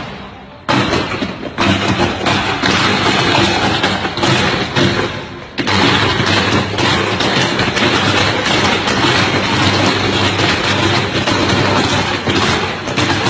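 Electrical pole and power lines arcing and burning: loud, continuous crackling and popping with a low buzz underneath. It eases off briefly about five seconds in, then comes back as strong.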